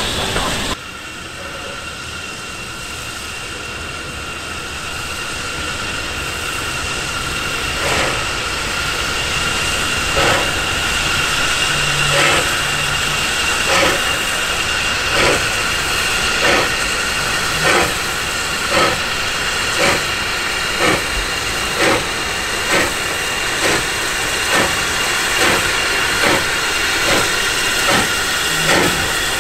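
LSWR T9 class 4-4-0 steam locomotive No. 30120 starting away with its train: a steady hiss of steam, then exhaust chuffs that begin about a quarter of the way in, slow and spaced at first and quickening steadily as it gathers speed.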